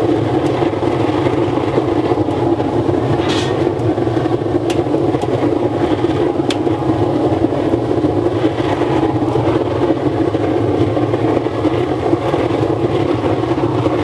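A 300 kW waste oil burner firing steadily into a drum furnace: an even rushing flame with a low hum under it. A few faint ticks sound over it.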